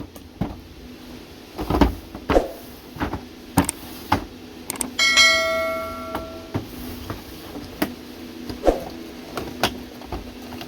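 Scattered light clicks and knocks of a diecast model car being handled, with a single bell-like metallic ring about five seconds in that fades over about a second and a half.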